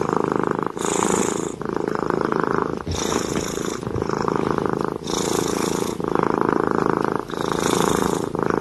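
Kitten purring steadily while it suckles from a milk bottle. The purr shifts with each breath in and out, roughly every second.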